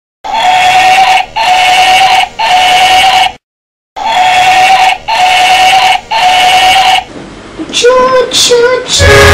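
Battery-operated toy steam locomotive's electronic sound chip sounding three one-second toots of the same pitch, then the same three again after a brief gap. Near the end come a few shorter, quieter electronic tones.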